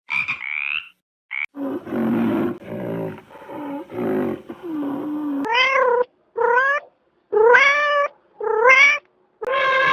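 A run of animal calls. First a short pulsed call, then a low, rough sound for a few seconds, then four short calls that each rise in pitch, and finally a long drawn-out wail beginning near the end.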